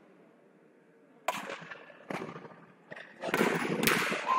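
Badminton rackets striking a shuttlecock in a rally: two sharp cracks under a second apart and a fainter third. Crowd noise rises near the end as the rally ends.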